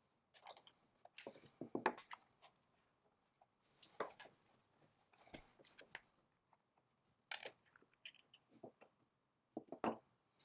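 Small brass parts and a glass-and-brass cylinder being handled, pulled apart and set down on a wooden workbench: scattered light clicks, taps and scrapes in irregular clusters.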